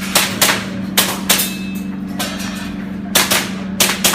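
Airsoft gun firing a string of sharp cracks at an irregular pace, about eight shots, over a steady low hum.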